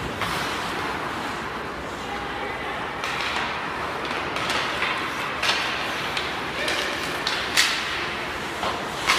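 Ice hockey play in an indoor rink: skates scraping on the ice and a few sharp clacks of sticks on the puck, the loudest about seven and a half seconds in, over indistinct voices.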